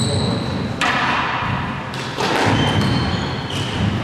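Squash ball being struck by a racket and hitting the court walls, sharp thuds about once a second that echo in the court. Brief high-pitched squeaks come between the hits.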